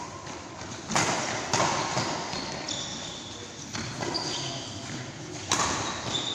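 Badminton rally: several sharp racket-on-shuttlecock hits one to two seconds apart, each ringing in a large hall, with short high shoe squeaks on the court floor between the hits.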